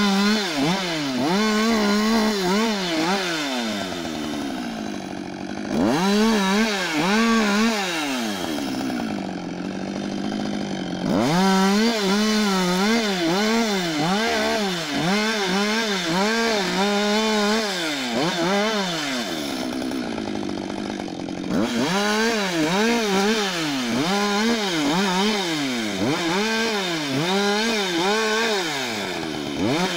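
Husqvarna 562 XP two-stroke chainsaw limbing a felled conifer: the engine revs up and drops back about twice a second as each branch is cut. Three times it settles lower for a few seconds between bursts of cutting.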